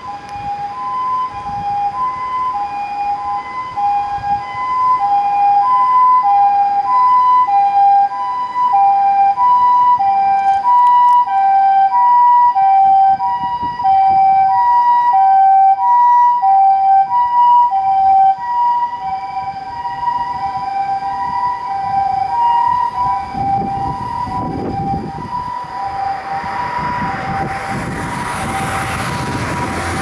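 Japanese ambulance siren sounding its two-tone hi-lo "pee-poh" call, switching between a higher and a lower note about every half second. It grows louder, is loudest through the middle, then eases off a little; in the last few seconds a broad rushing vehicle noise rises beneath it.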